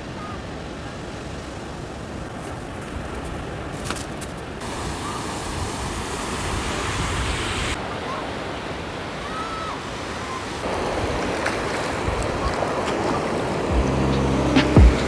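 Ocean surf washing steadily on a sandy shore, a rushing noise that shifts abruptly twice. Music comes in near the end.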